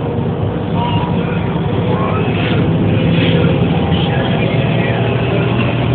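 Bus engine running with steady cabin noise, heard from inside the bus: an even low drone that grows a little stronger about two seconds in.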